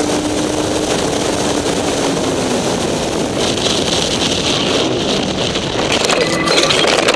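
Steady wind rush and engine hum of a motorcycle ride on a highway, then about six seconds in a motorcycle crash: a quick clatter of impacts and scraping as the bike and camera go down.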